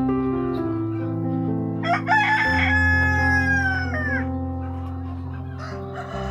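A rooster crows once, a call of about two seconds starting about two seconds in. Steady background music with held notes plays underneath.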